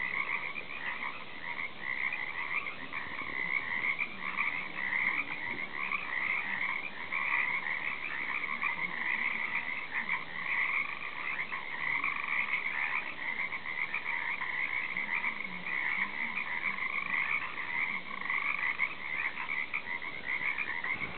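A chorus of many frogs calling at once: a continuous, overlapping trilling in two pitch bands, a higher one and a lower one.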